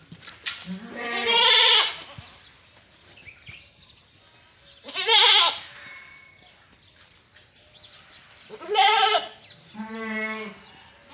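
Goats bleating, four separate calls a few seconds apart, each with a wavering pitch.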